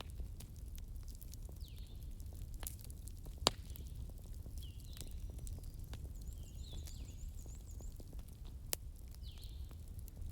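Wood fire crackling over a low steady rumble, with scattered small clicks and two sharp pops, the louder one about three and a half seconds in and another near the end. A faint high chirp repeats about every second and a half.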